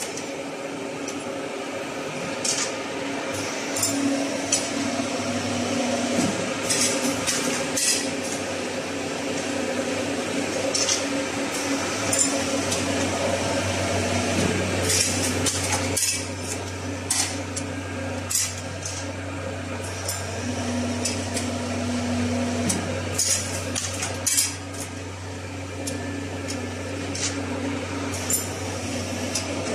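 Thread-cutting machine running with a steady hum, with frequent sharp metallic clinks. A lower hum joins about halfway through.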